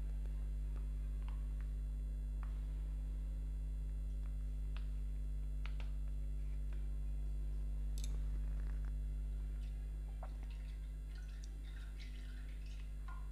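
Steady low electrical hum, with faint scattered ticks and crackles as cooking oil is poured in a thin stream into a hot stainless-steel kadhai.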